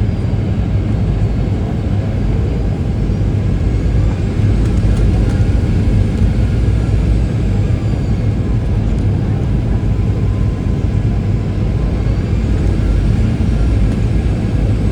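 Boeing 737-800 jet airliner making a steady low rumble of engines and rushing air, with faint high whines that drift slowly in pitch.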